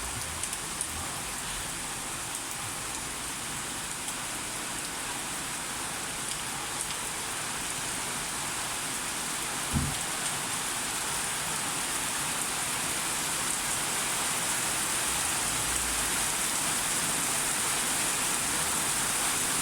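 Heavy rain falling steadily, growing slightly louder toward the end, with a single dull thump about ten seconds in.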